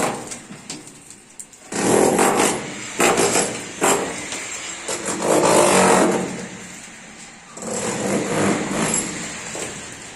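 A power tool running in bursts of two to three seconds, starting and stopping three times.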